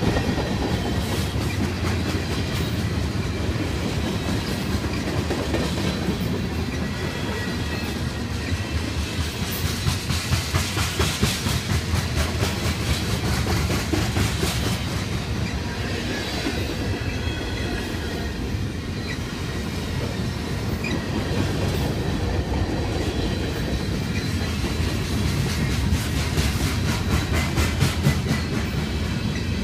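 Freight train's covered hopper and tank cars rolling past close by: a steady rumble with wheels clacking over rail joints in a quick, uneven patter, and a faint high-pitched wheel squeal now and then.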